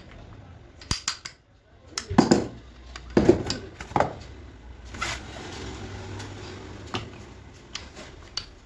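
Clinks and knocks of steel engine parts (pistons, piston pins and connecting rods) being handled, fitted and set down on a sheet-metal workbench, with a few sharp clicks about a second in and heavier clunks around two, three and four seconds in.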